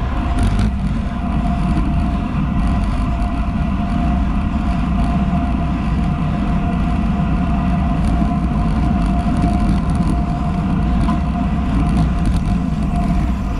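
Wind rushing over an action camera on a moving road bike, with the rumble of tyres on carbon road wheels rolling over asphalt. A thin steady whine runs through it.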